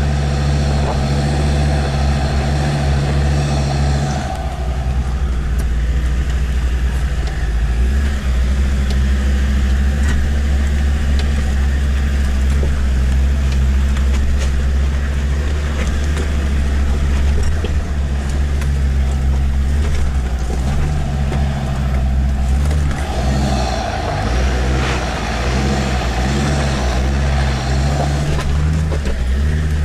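Land Rover Discovery 2's Td5 five-cylinder turbodiesel engine pulling in a steady low drone, heard from inside the cab while crawling over a rough stony track, with frequent knocks and rattles from the bouncing vehicle.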